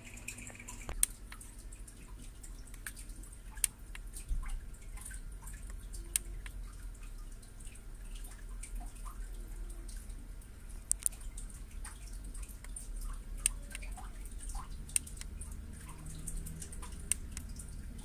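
Scattered light clicks at irregular intervals, a few sharper and louder than the rest, over a low steady hum. These are the Kensington SureTrack wireless mouse being handled and its buttons clicked.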